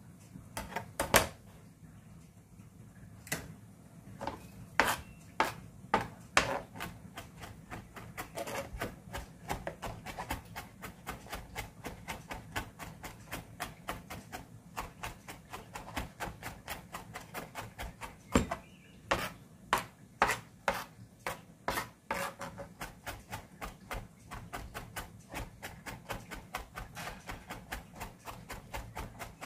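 A kitchen knife chopping rapidly on a cutting board, mincing garlic and chilies as finely as possible in place of pounding them in a mortar. Sharp strikes, a few harder ones in the first seconds, then a steady run of about three to four a second.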